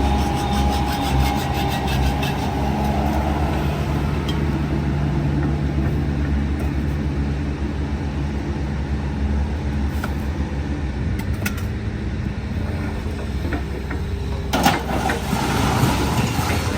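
An engine running steadily at an even low pitch, with a single sharp knock about fifteen seconds in.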